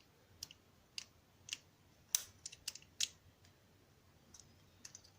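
Small sharp metallic clicks and taps, about ten at irregular intervals, from a picked Mul-T-Lock Integrator dimple lock cylinder and tools being handled as it is taken apart; the loudest click comes a little past two seconds in.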